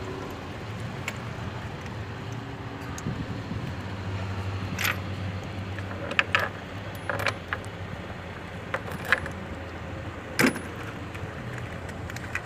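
A hand ratchet wrench clinking against metal engine parts as removed parts are bolted back on: a handful of sharp, separate clinks over a steady low hum.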